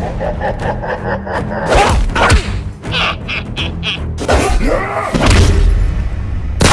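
Staged fight sound effects: several punch-like thuds over background music.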